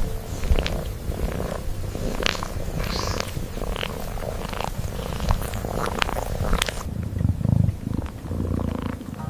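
Domestic cat purring steadily, with scattered soft clicks and rustles over it.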